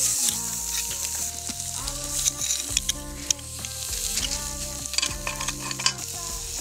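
Hot stones sizzling against mutton inside a hollowed cabbage as they are set in with metal tongs: a steady hiss broken by sharp clicks of tongs and stone.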